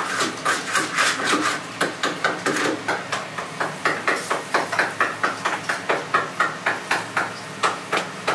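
Rhythmic knocking of kitchen work on a wooden board, a little over three sharp strokes a second, keeping an even pace throughout.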